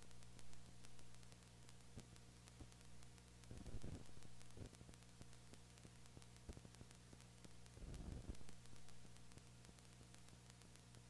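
Near silence: a recording's steady hiss and low electrical hum, with two faint low bumps, one about a third of the way in and one about two-thirds in.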